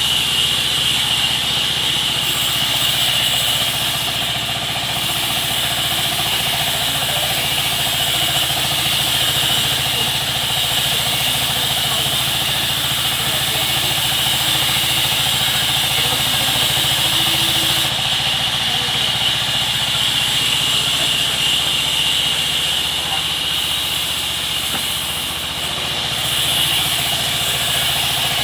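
Engine-driven sawmill running steadily: a constant low engine hum under a steady high-pitched hiss.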